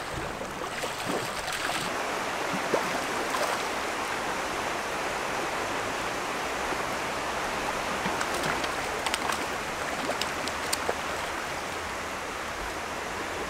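Rushing water of a shallow stream riffle, a steady hiss. A few faint clicks come about two-thirds of the way through.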